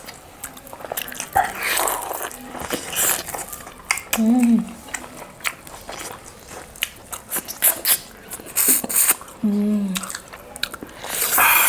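Close-miked eating: a large piece of mutton lollipop being bitten and chewed, with many short wet clicks and crunches. There are two short hummed vocal sounds, about four seconds in and again near 9.5 seconds.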